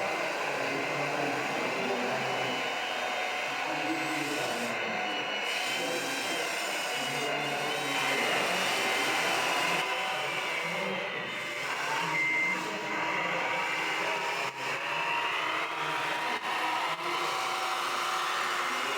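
Small electric motors and gearboxes of radio-controlled scale trucks and construction models whining, their pitch shifting up and down as they drive and work, over a busy hall's background chatter. A brief high beep sounds about twelve seconds in.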